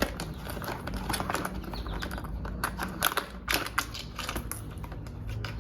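Irregular light clicks and rattles of plastic connectors and wiring being handled, as the tail unit's wiring plugs are fed through the motorcycle's rear bodywork.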